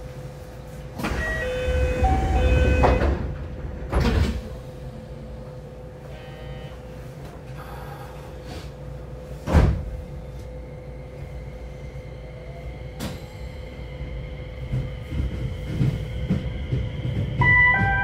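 Train interior of a JR West 227 series local electric train: a door chime sounds with the doors sliding and rumbling, a knock follows, then a single loud clunk. Later the traction motors whine rising in pitch as the train gathers speed, and a short chime sounds near the end.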